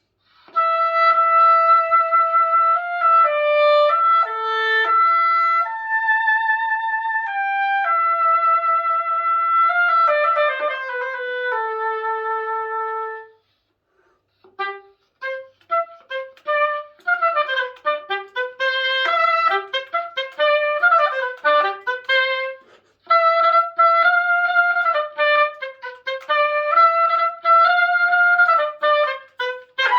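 Solo oboe playing a melody. It plays long held notes for about the first thirteen seconds, then after a short pause a quick run of short notes, then held notes again with a slight vibrato.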